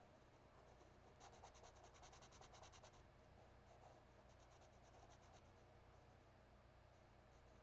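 Faint, rapid back-and-forth scratching of a drawing tool on sketchbook paper, shading in quick strokes: one run of strokes about a second in and a shorter one around four seconds in.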